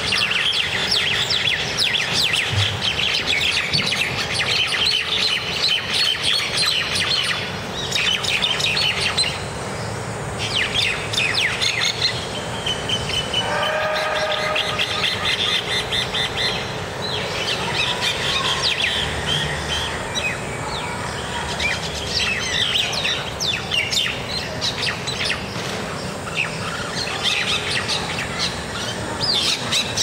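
Common mynas chirping and calling in a rapid, dense chatter while fighting on the ground. About halfway through, a steady held tone sounds for about two seconds over the chatter.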